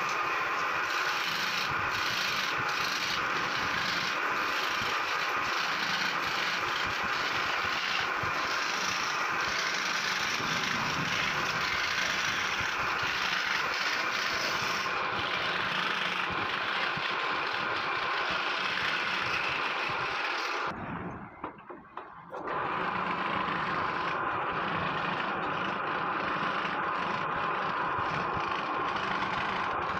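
Electric scroll saw running, its fine reciprocating blade cutting intricate fretwork through wood, a steady noise. The sound drops away for about a second and a half about two-thirds of the way in, then resumes.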